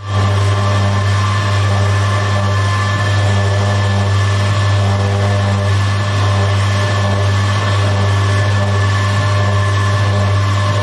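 Commercial dough mixer running steadily, its hook kneading stiff dough in a stainless-steel bowl: a loud, even motor hum with a few fixed higher tones over it.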